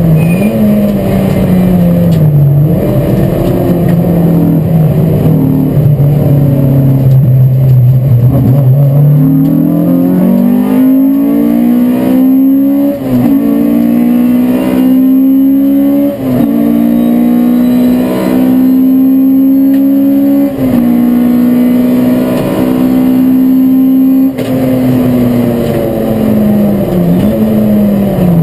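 Race car's engine heard from inside the cockpit under racing load. The note sinks slowly for several seconds, climbs again, then holds high, with several short breaks at gear changes.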